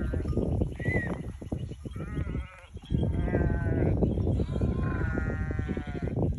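A flock of sheep bleating: several wavering bleats overlap one after another, with a short lull about two and a half seconds in. A constant low rumble with scattered knocks runs underneath.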